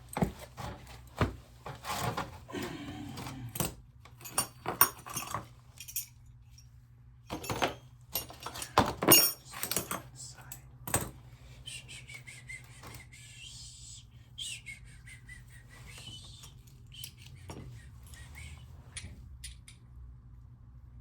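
Metal tools and small parts clinking and knocking as they are handled, in irregular sharp clicks that are densest in the first half, with a few seconds of steady hiss-like rustle about halfway through.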